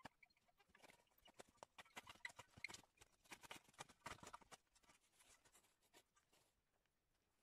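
Faint crunching and knocking of a steel spade cutting into grassy soil and breaking up clods while loosening the ground for a trench, thinning out over the last couple of seconds.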